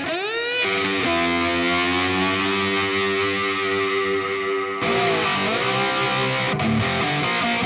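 Background rock music led by a distorted electric guitar. It opens with a falling glide into a long held chord, then plays bending notes over a steady high cymbal tick in the last few seconds.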